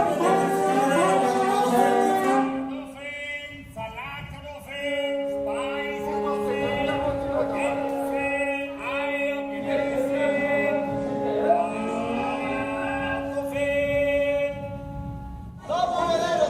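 Contemporary chamber music for viola and single-reed instrument with played-back voices: a dense passage gives way, about two and a half seconds in, to long held tones under short, repeated sung or called voice phrases, and the dense music returns near the end.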